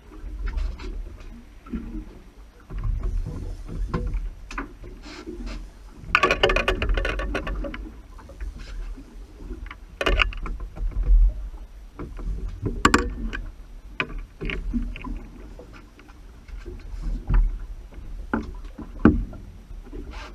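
Handling noise on a small boat at sea: a steady low rumble of wind and water with many scattered knocks and clicks, and a louder burst of rattling noise about six seconds in.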